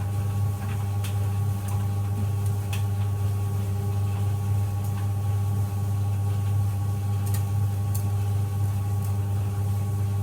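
White Knight CL372WV vented compact tumble dryer running on high heat: a steady low motor-and-drum hum with a few higher steady tones, and occasional light clicks.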